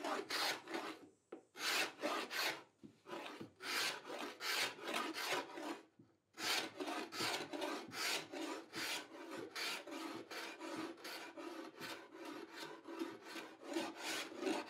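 A wide hand scraper drawn repeatedly across a mahogany bookcase top, scraping off its old lacquer finish. It makes quick rasping strokes, about two to three a second, with short pauses about three and six seconds in.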